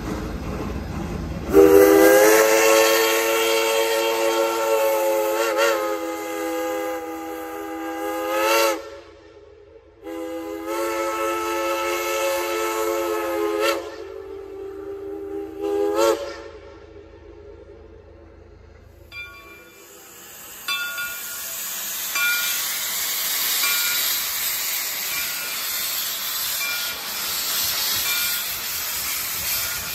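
Chime whistle of a geared steam locomotive sounding two long blasts, a chord of several steady pitches, the first about seven seconds and the second about six; two long blasts are the usual signal to release brakes and proceed. A steady hiss of steam follows.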